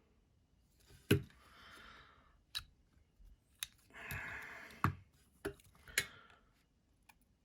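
Sharp, scattered clicks and taps of small metal parts being handled while fitting the pocket-clip screws on a folding knife, about six in all, with soft breathy noise between them.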